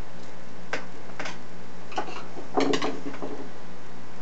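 Light clicks and taps of small plastic and metal parts being handled and fitted on a laptop's screen assembly: about five scattered clicks, the loudest a quick cluster a little past halfway.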